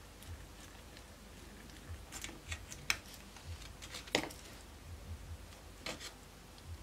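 Faint scattered clicks and light scrapes of a small drill boring out the plastic gun barrels of a 1/48 model aircraft kit, with no motor sound. The sharpest click comes a little past halfway.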